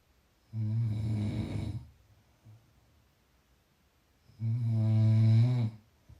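Snoring: two snores about four seconds apart, each lasting over a second, the second louder and steadier in pitch than the first.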